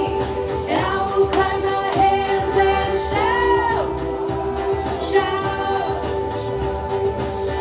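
A worship song playing, a woman's singing voice over an instrumental backing with a steady held note underneath.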